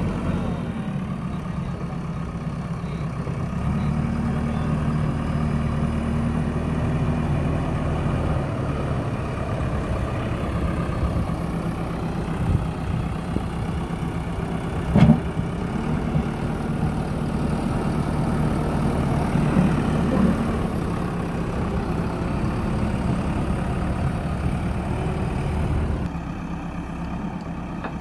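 JCB backhoe loader's diesel engine running steadily, getting louder about four seconds in and easing off near the end. A single sharp knock about halfway through is the loudest sound.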